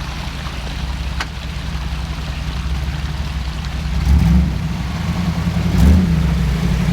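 Off-road vehicle's engine running steadily as it works along a snowy trail, with two brief rises in revs about four and six seconds in.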